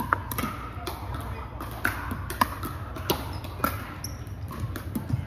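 Pickleball rally: a plastic ball struck back and forth with paddles, a string of sharp pocks about two-thirds of a second apart, ringing in a large gym hall.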